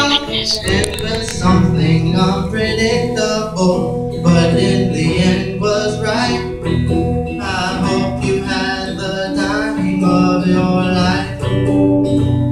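A man singing to his own strummed hollow-body electric guitar, a solo live performance.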